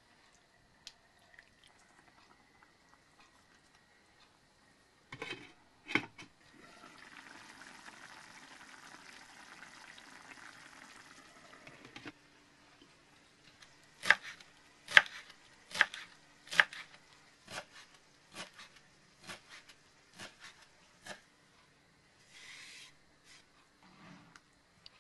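Cooking sounds at a pan of pork goulash. There is a clatter of utensil on pan, then a soft hiss of the sauce simmering. Later comes a run of about eight sharp knocks, roughly one a second, loud at first and then fading.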